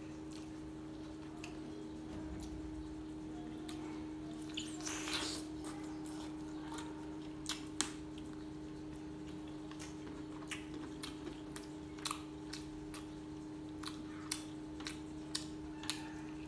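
Close-up eating sounds of a man biting into a chicken drumstick and eating rice by hand: wet chewing with irregular lip-smacking clicks, and a short slurp about five seconds in. A steady low hum runs underneath.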